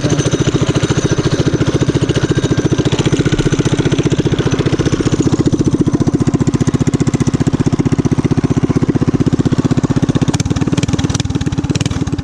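Small pull-start engine of a newly built bike, running steadily with an even, fast pulsing beat.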